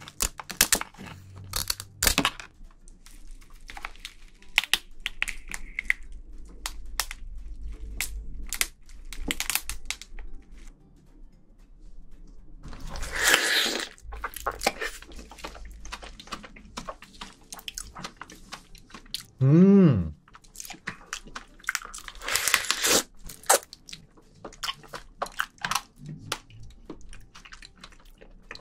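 Close-miked eating of raw soy-sauce marinated crab (ganjang gejang): snips of scissors through the shell near the start, then many crackles and crunches of shell being bitten and long wet sucks as the meat is drawn out of the shell, twice at length. About two-thirds through comes one short hum from the eater.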